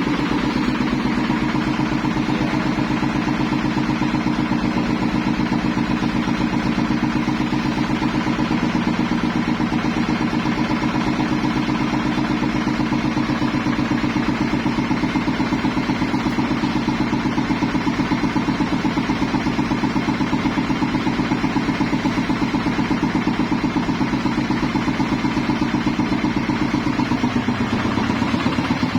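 Engine-driven corn grinding machine running steadily, with a fast, even pulse.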